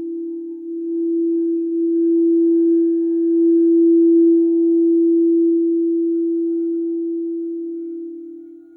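Quartz crystal singing bowl sounding one steady, sustained tone that swells over the first couple of seconds, is loudest around the middle and fades near the end.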